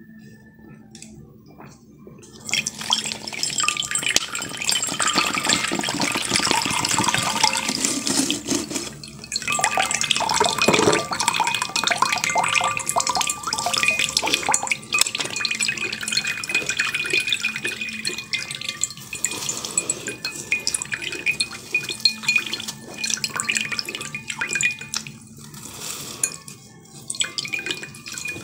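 Frozen plastic water bottle squeezed and peeled off its block of ice: dense crinkling and crackling of the plastic and ice, with meltwater dripping and trickling. It starts about two seconds in.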